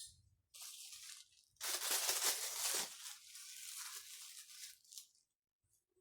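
Crinkling and tearing handling noise in several rough bursts, loudest from about one and a half to three seconds in, then softer rustling that dies away.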